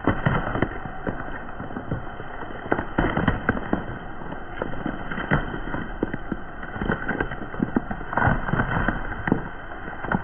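Whole apples crunching and splitting under a slowly rolling car tyre on concrete: bursts of sharp cracks and snaps, one cluster after another as each apple is crushed, the densest run coming late.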